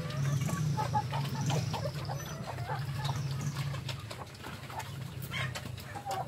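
Sows feeding at a trough, with wet chewing and smacking clicks over a steady low drone, and chickens clucking now and then.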